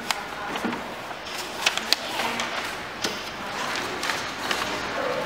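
Plastic bin drawer of a GBC ShredMaster Auto+ 60X paper shredder being pulled open, with a few sharp plastic clicks and knocks and rustling paper.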